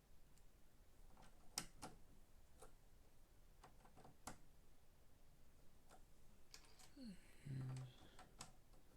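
Faint, scattered small clicks of Lego plastic pieces being handled and pressed into place while roof tiles are laid, in near silence.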